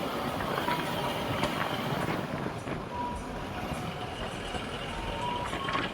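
Steady engine and road noise of a vehicle driving.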